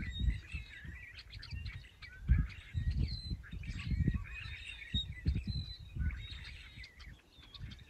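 Small birds chirping and twittering in a busy chatter, with irregular low thumps underneath.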